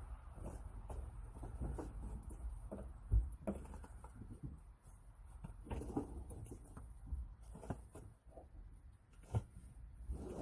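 Scattered light knocks and clicks from a steel truck rim being handled and fitted onto the van's wheel hub, with one louder thump about three seconds in.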